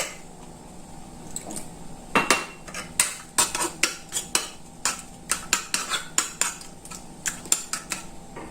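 A spoon clinking against a bowl in irregular taps while stirring water into a tomato pizza sauce to thin it.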